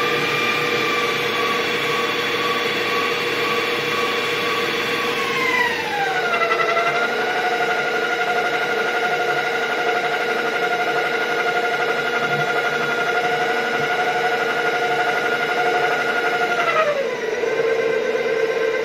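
Stand mixer running, its motor whining over a steady hum as it beats thick sponge-cake batter while flour is worked in. The whine drops in pitch about a quarter of the way in and again near the end.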